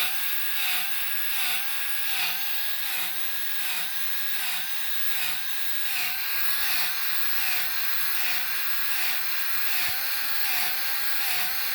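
Battery-powered grease gun running continuously, its motor pulsing regularly about once every three-quarters of a second as it pumps grease through a new grease fitting into an excavator track roller bearing.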